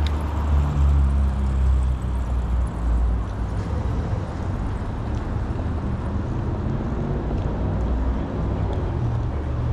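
A motor engine running with a low, steady rumble, a little louder in the first few seconds, over open outdoor background noise.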